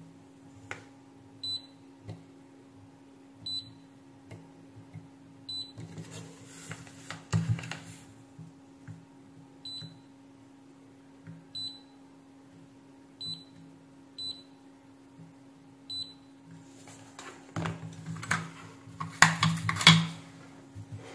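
Kaiweets KM601 digital multimeter beeping in short, high-pitched blips, about nine of them a second or two apart, as its probes touch points on a circuit board: the continuity buzzer sounding at near-zero readings. Handling clatter of the board and test leads near the end.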